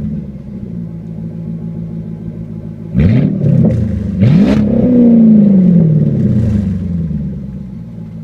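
Chrysler 300C SRT8's Hemi V8 exhaust, car standing still: it settles from a rev into idle, then is revved in two quick blips about three and four seconds in. The second is held longer, and its pitch falls slowly back to idle.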